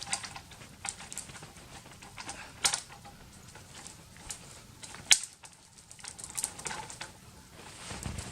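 Dry dead twigs cracking and snapping in irregular sharp clicks, with the loudest snaps about two and a half and five seconds in.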